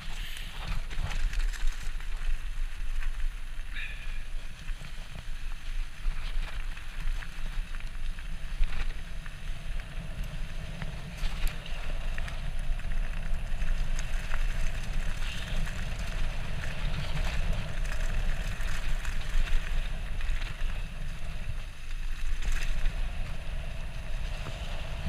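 Steady low rumble of wind on the microphone and tyre noise from a bicycle rolling along a path, with occasional short clicks and rattles.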